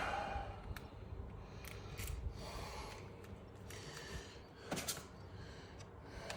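Faint handling noise with a few light clicks and rustles as a lockout lock and tag are fitted to an electrical isolation switch, the clearest click nearly five seconds in.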